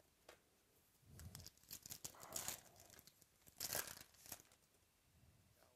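Faint crinkling and tearing of a foil trading-card pack wrapper as it is opened and the cards are pulled out. It comes as a run of rustles from about a second in, loudest twice in the middle.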